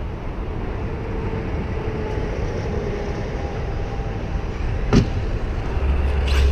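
RC monster truck with a brushless motor running at a distance, a faint motor whine under heavy wind-like rumble on the microphone. A sharp knock comes about five seconds in, then a few clicks near the end, as of the truck hitting or landing.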